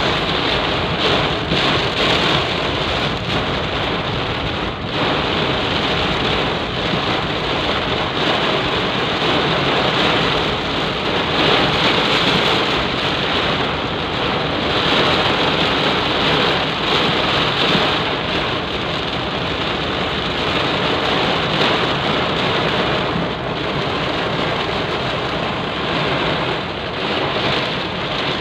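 Heavy rain falling in a steady downpour, a dense even hiss of rain on hard surfaces.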